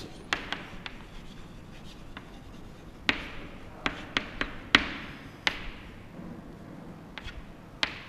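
Chalk writing on a chalkboard: a series of sharp, uneven taps as the chalk strikes the board, with faint scraping between them.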